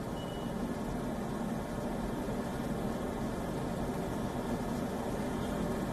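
Steady low hum and hiss, even throughout, with no distinct events.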